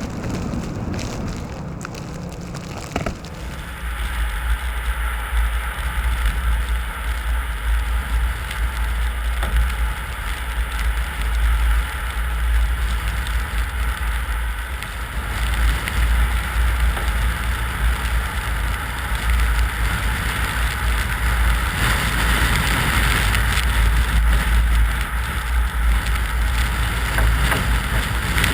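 A vehicle driving, with a steady low rumble of engine and road noise and an even hiss above it, starting abruptly about three seconds in.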